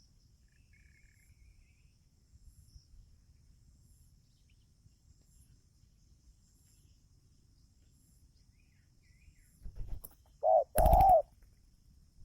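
Spotted dove cooing close by: a short coo and then a longer coo that rises and falls, near the end, loud enough to distort. Faint, evenly spaced insect chirps before it.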